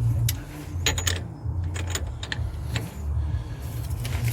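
Irregular sharp metal clicks and clinks of hand tools working a new drive-shaft nut at a car's front hub, over a steady low hum.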